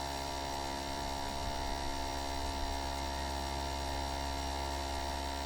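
Steady electrical hum made of many constant tones, unchanging throughout.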